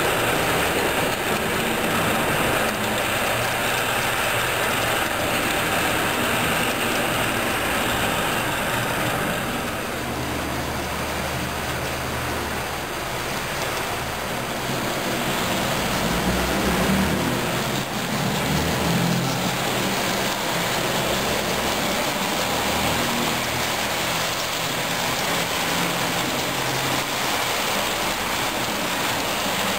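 HO-scale model passenger train running along the layout's track: a steady mechanical rolling and whirring noise that deepens from about a third of the way in.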